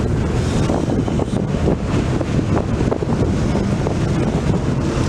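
Strong gusty wind from an approaching dust storm buffeting the microphone, a loud, fluttering rumble, with a steady low hum underneath.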